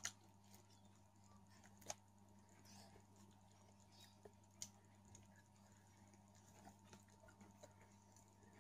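Near silence with a low steady hum and a few faint, sharp clicks spread out, the clearest just at the start, about two seconds in and between four and five seconds in.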